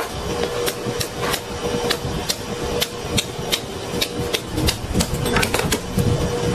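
A knife blade knocking against a cutting board as a raw rib rack is cut apart between the ribs: irregular sharp taps about once or twice a second, over a steady hum.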